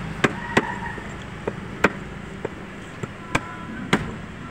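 A large knife chopping fish on a wooden chopping block: about eight sharp chops at uneven intervals, over steady street background noise.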